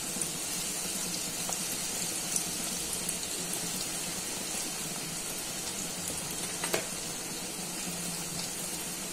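Bread pieces deep-frying in hot refined oil in an aluminium kadhai: a steady sizzle and bubbling. Two brief light knocks, about two and a half and nearly seven seconds in, the second the louder.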